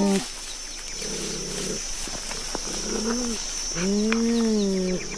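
Big-cat calls made from cheetah and cougar recordings for a reconstructed American cheetah (Miracinonyx). A rough call comes about a second in, a short call near three seconds, and a long call that rises then falls near the end, all over a faint steady high tone.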